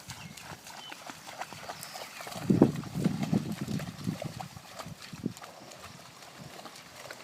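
A dog swimming through flood water, with irregular splashing and paddling sounds. There is a louder stretch about two and a half to three and a half seconds in.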